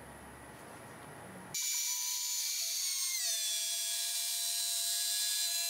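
Quiet room tone, then a CNC router's spindle starts up suddenly with a steady high whine, cutting half-inch Baltic birch plywood with a Freud straight bit. About a second and a half after it starts, the whine drops a little in pitch and then holds steady.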